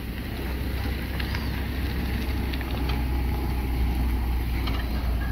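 Steady low rumble of wind buffeting the microphone, with a few faint clinks of a metal fork against a barbecue grill grate.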